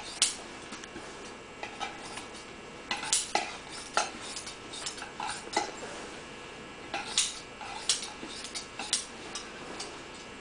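Upholstery scissors snipping through polyester Dacron batting, trimming off the excess: short runs of crisp snips coming every second or two.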